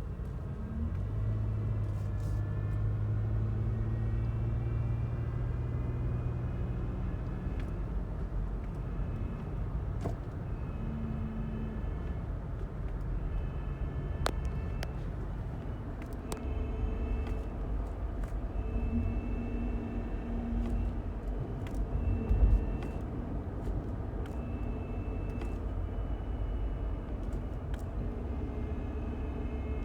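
A 2017 Toyota Highlander on the move, a thin high whine from its UA80F eight-speed automatic transmission coming and going over steady road and engine rumble. The whine glides up in pitch over the first several seconds, then holds steady in stretches. It is the transmission's whining failure, heard across several gears, which the owner suspects lies in the final drive.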